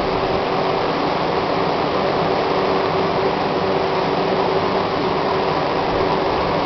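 RY FG 900B stretch-film wrapping machine running, its turntable turning a box while film winds on. It makes a steady, even mechanical drone with one steady tone through it.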